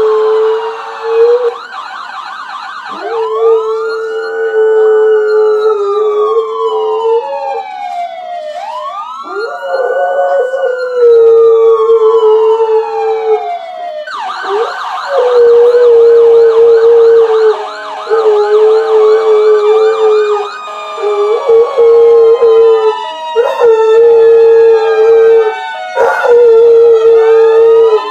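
A dog howls along with recorded police sirens. It gives long howls held at one steady pitch, breaking off and starting again every few seconds, while the sirens wail slowly up and down and switch at times to a fast yelp.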